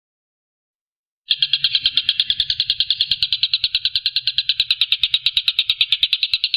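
Tengkek buto (stork-billed kingfisher) giving a loud, fast rattling trill of about a dozen even notes a second, starting suddenly about a second in.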